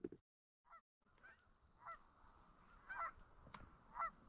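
Canada geese honking: a string of faint, separate honks that begins about a second in and carries on at intervals.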